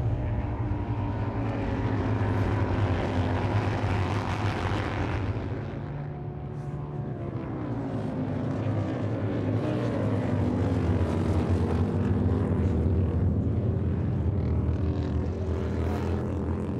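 Pack of Harley-Davidson Road Glide and Indian Challenger racing baggers running at race pace, their big V-twin engines making a steady drone. About six seconds in the engine note dips and then climbs again as the bikes slow for a corner and drive out of it.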